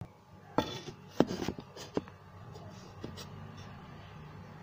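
Light handling noises: a handful of soft clicks and knocks with some rubbing in the first three seconds, over a faint steady low hum.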